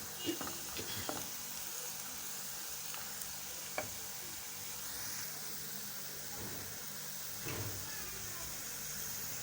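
Sliced red onions sizzling as they fry in hot oil in a pot, browning toward golden brown, with a few light scrapes and clinks as they are stirred and turned.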